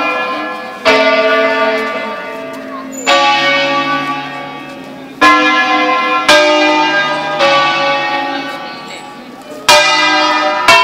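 Six-bell peal of the Collegiata of Bellinzona, Bizzozero church bells tuned in A, playing an automated 'concerto solenne': single bell strokes at uneven intervals, about six in all, each ringing on and fading slowly, the bells sounding at different pitches.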